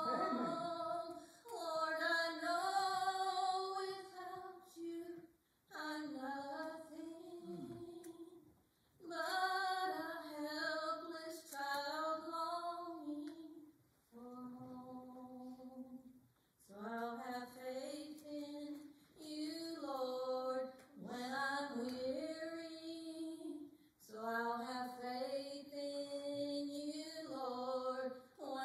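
A woman singing a slow gospel hymn solo, in long held, wavering notes, with short near-silent pauses between the phrases.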